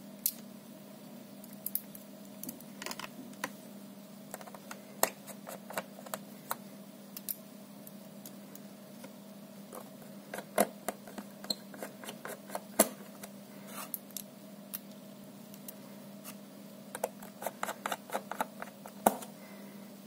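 Small precision screwdriver and fingers clicking and tapping on the metal frame of a laptop palmrest assembly as screws are worked. The clicks are irregular, with a quick cluster near the end, over a steady low hum.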